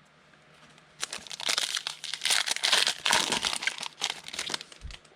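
A foil football-card pack wrapper being torn open and crinkled by hand, a dense run of quick crackles starting about a second in and dying away near the end.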